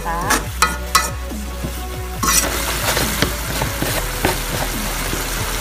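Metal ladle scraping and clinking against a metal wok as fern leaves are stirred, then a steady sizzle of the leaves frying in the pan from about two seconds in.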